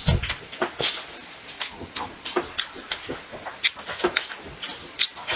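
Close-miked eating sounds: a man chewing and lip-smacking a mouthful of braised meat, an irregular run of sharp clicks and smacks several times a second.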